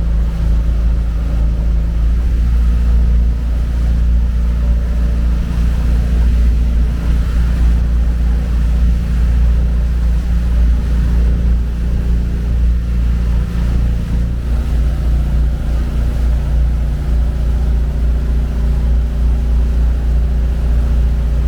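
Tour boat's engine running steadily under way, a low drone with a slight change in its tone about two-thirds of the way through.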